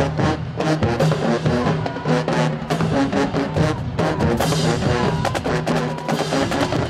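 Marching band playing: brass with sousaphones over a steady, busy drum beat.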